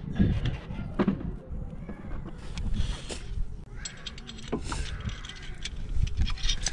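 Scattered metallic clicks and knocks with a few brief rustles, from a brake caliper and tools being handled while the caliper is fitted to the hub.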